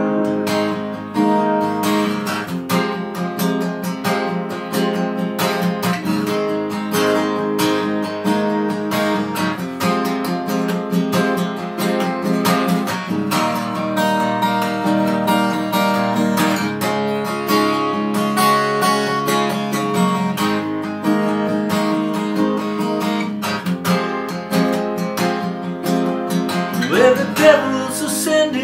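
Acoustic guitar strummed steadily through an instrumental break between verses of a slow song. A man's singing voice comes back in near the end.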